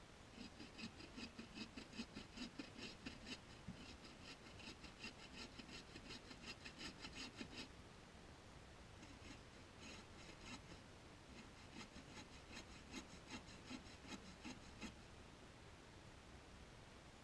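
Hand saw cutting through a dead log: quick back-and-forth rasping strokes in three runs, the first the longest, with short breaks between them.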